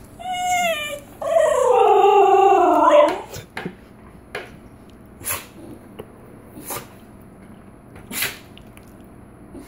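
Basenji–whippet mix dog yodelling, the breed's barkless 'baroo': a short high call, then a louder, longer wavering call that slides down in pitch, about three seconds in all. It is the noise she makes to demand a treat. Three short sharp noises follow a few seconds later.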